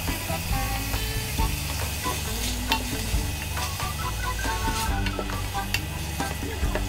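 Shrimp and garlic sizzling in a hot frying pan while a wooden spatula stirs and scrapes them, with a few sharp knocks of the spatula against the pan, over quiet background music.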